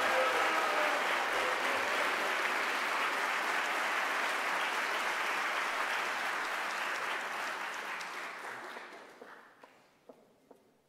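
Audience applauding, steady at first and then dying away about eight to nine seconds in, leaving a few last scattered claps.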